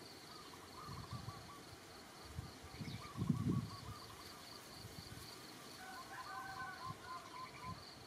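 Faint, steady chirping of crickets, pulsing several times a second, with softer trilling calls now and then and a few low rumbles.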